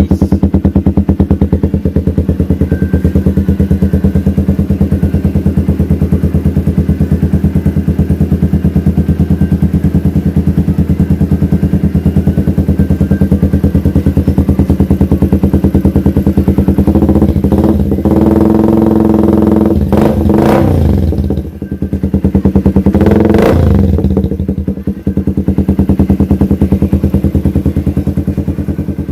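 Suzuki Raider 150's single-cylinder four-stroke engine running through a CHA RAMA 9 aftermarket exhaust with no silencer, idling steadily. About 17 seconds in it is revved up and drops back, then it is blipped again briefly near 23 seconds before returning to idle.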